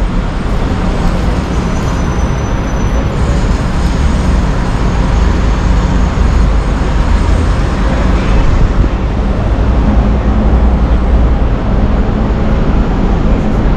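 Steady city traffic noise from cars and buses on a busy street, a continuous low rumble.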